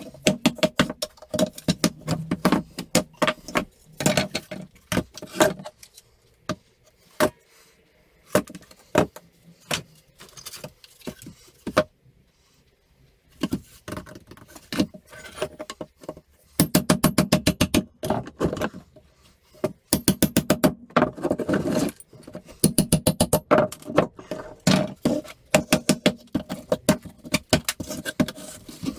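Claw hammer knocking apart pallet wood: irregular sharp knocks and metallic clinks, with a brief lull about halfway, then two stretches of rapid, closely spaced strikes.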